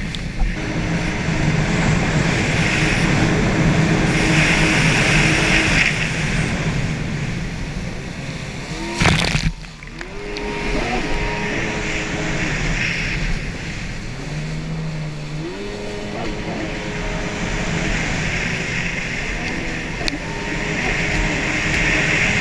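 Stand-up jet ski engine running hard under wind and water rush. Its pitch holds steady at first, then repeatedly drops and climbs again as the throttle is eased and reopened through turns. A short loud burst about nine seconds in is followed by a brief dip.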